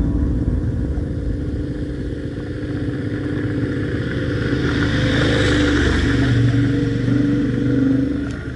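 Motorcycle engine running steadily, growing louder as the motorcycle draws near and peaking near the end before dropping away.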